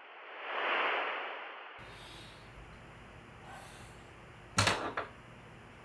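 A hiss-like whoosh swells up and fades away over the first second and a half. Nearly five seconds in comes a sharp, loud clatter of two or three quick clicks as something is handled on a bedside nightstand.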